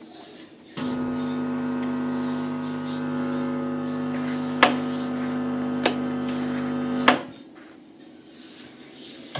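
A steady buzzing hum from the record player's speaker. It switches on suddenly about a second in, is broken by two sharp clicks, and cuts off with a third click near the end.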